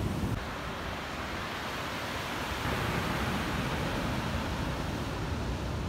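Storm surf breaking and washing up a pebble beach: a steady rushing hiss that swells about two seconds in, with wind rumbling on the microphone.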